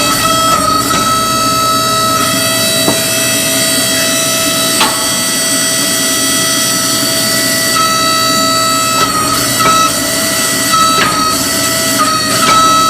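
Forging shop machinery running with a steady high-pitched whine, with a couple of sharp knocks of metal on metal.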